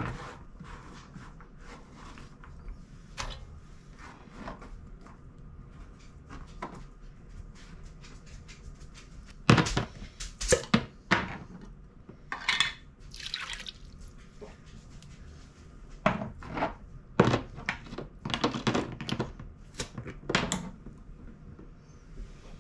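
Chopped leeks and carrots and home-canned crushed tomatoes being added to a soup pot: scattered knocks and scrapes with wet plops and drips of the tomatoes. The loudest clatter comes in two spells, about ten seconds in and again from about sixteen to twenty-one seconds.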